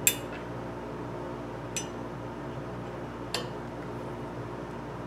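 Three light metallic clicks about a second and a half apart, the first the loudest, as a lathe spindle indexing wheel is turned by hand and its tapered indexing pin is lined up with the wheel's holes. A steady low hum runs underneath.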